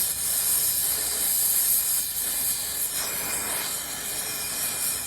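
Steady hiss, strongest in the high treble, with small swells in level and no clear tone or rhythm.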